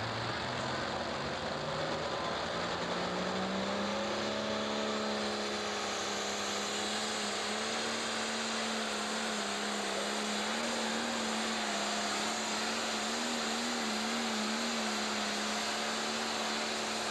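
Turbocharged diesel engine of a pro stock pulling tractor revving up over the first four seconds and then held at high revs, running hard under load as it drags the weight sled. Its pitch wavers slightly midway through the pull.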